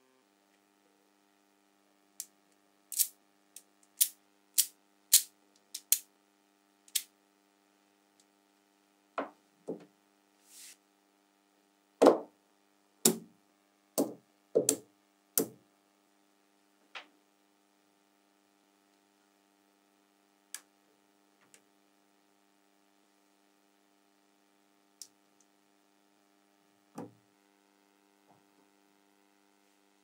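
Small magnetic balls clicking as they snap together and onto a model: a quick run of sharp clicks, then heavier clicks with a low knock in them between about nine and sixteen seconds in, then a few scattered clicks. A faint steady hum runs underneath.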